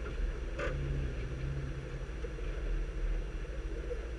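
Ford Mustang SVT Cobra's supercharged V8 idling steadily, with a brief hiss about half a second in.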